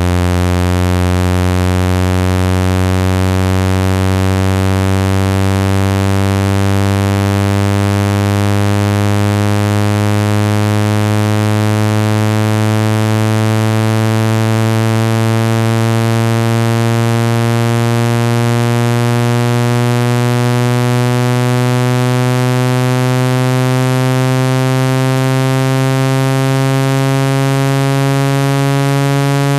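Synthetic low buzzing tone, rich in overtones, slowly gliding upward in pitch at a steady loudness: a speaker water-ejection sweep meant to vibrate water out of a phone speaker.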